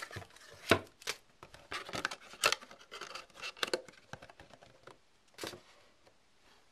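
Cardboard packaging being handled: box flaps bent and rubbed, and a cardboard box set down on a table with several sharp taps and knocks, growing sparser and quieter after about four seconds.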